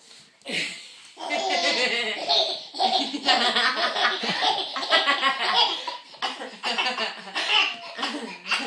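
A baby laughing hard: a near-unbroken run of giggles and belly laughs that starts about a second in, with short breaks for breath.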